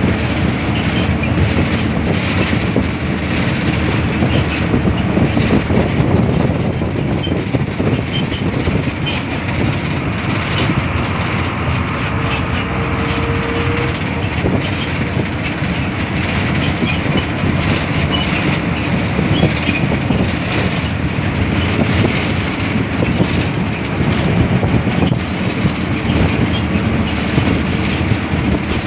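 Steady road noise of a vehicle driving along a paved road, heard from inside the cabin: a continuous rush of tyres, engine and wind.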